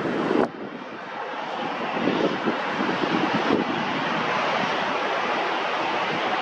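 Airliner jet engine noise, a dense rushing sound that drops off sharply about half a second in, then slowly builds and holds steady.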